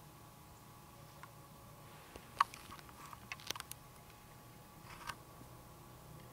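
A few scattered sharp clicks and ticks over a faint steady hum: the loudest about two and a half seconds in, a quick cluster of several a second later, and one more near the end.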